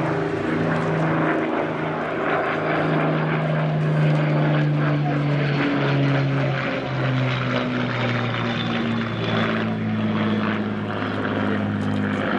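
Rolls-Royce Merlin V12 piston engines of a Spitfire and Hurricane flying past, a steady propeller drone whose pitch falls slowly as the aircraft pass.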